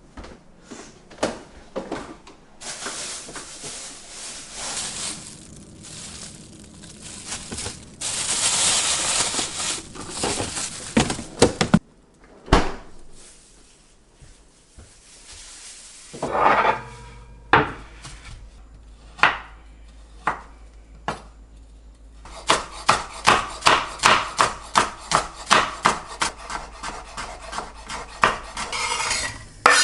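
Kitchen handling sounds: scattered clatter and knocks, a few seconds of rustling noise, then a run of quick, even knocks at about two or three a second near the end, like chopping on a wooden board.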